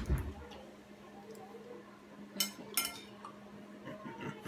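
Metal training chopsticks clinking against a ceramic plate while picking up noodles: two sharp clinks about two and a half seconds in, with a few fainter taps and a soft low thump at the start.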